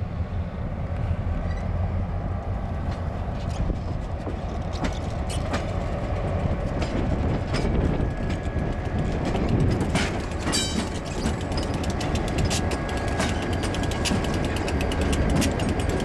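Freight train led by EMD F-unit diesel locomotives passing close by: a steady low engine rumble with the clicking and creaking of wheels over the rails. The clicks come faster and closer together toward the end, and a faint steady squeal joins about halfway through.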